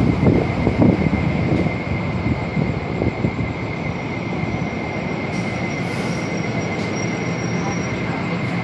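Passenger train on the rails, the cars rumbling by with uneven heavy pulses for the first three seconds, then settling into a steady rumble. A thin, steady high tone runs through it.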